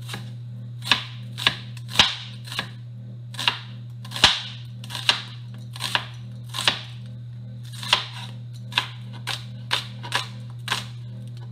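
Kitchen knife slicing a whole onion on a cutting board, each cut ending in a sharp knock of the blade on the board. The cuts come irregularly, roughly two a second, with a short pause about seven seconds in.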